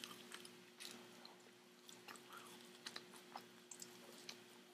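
Faint close-up chewing of French fries with closed-mouth smacks and soft clicks.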